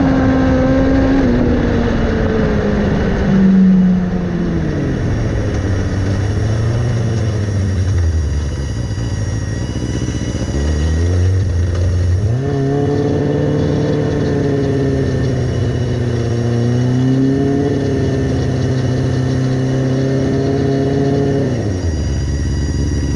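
Open-wheel dirt-track race car's engine, heard from the cockpit: it winds down from speed over the first few seconds, runs low and rough for a while, then holds a steady moderate pitch for about ten seconds before dropping to a low idle near the end.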